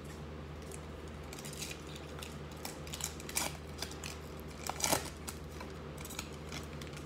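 Foil wrapper of a Panini Illusions basketball card pack crinkling and tearing as it is ripped open by hand, with the sharpest crackles about three and a half and five seconds in. A steady low hum runs underneath.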